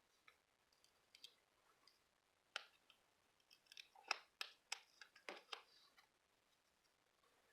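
Scissors snipping paper: a string of short, sharp snips and clicks, thickest in the middle.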